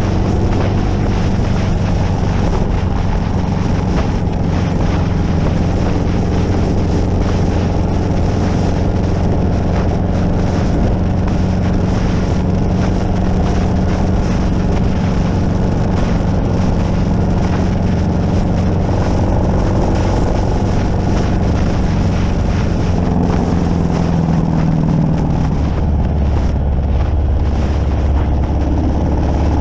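Harley-Davidson Street Glide's V-twin running steadily at cruising speed under way, with wind rushing over the microphone; the engine note shifts lower near the end.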